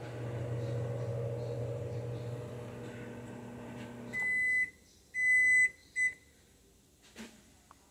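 Kenmore over-the-range microwave oven running with a steady hum, which cuts off about four seconds in as the oven shuts off. Three electronic beeps follow, the middle one longer, then a faint click.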